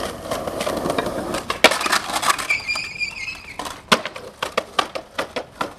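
Skateboard wheels rolling on stone paving, a sharp clack about a second and a half in, then the board sliding along a stone ledge with a short squeal. A loud clack follows near the end, then a run of quick sharp clicks.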